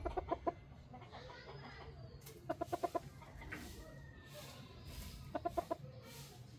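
Chicken clucking in three short runs of quick clucks: one at the start, one about two and a half seconds in, and one near the end.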